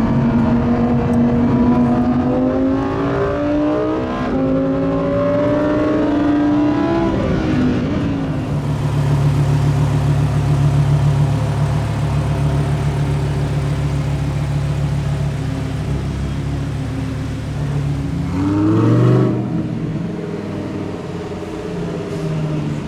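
Lamborghini Huracán Performante Spyder's V10 engine pulling up through the gears, its pitch climbing and dropping back at each of two upshifts in the first eight seconds. It then settles into a steady low drone, with one quick rev that rises and falls near the end.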